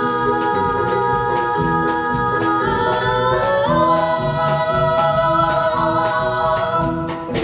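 A group of voices singing long held notes together over musical accompaniment with a steady ticking beat; the held chord steps upward about halfway through.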